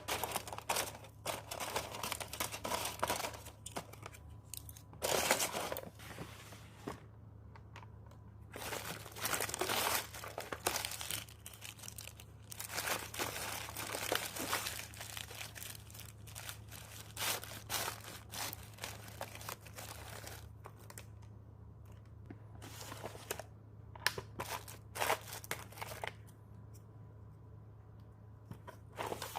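Crinkling, tearing and rustling of craft material handled by hand, in irregular bursts with short pauses, over a low steady hum.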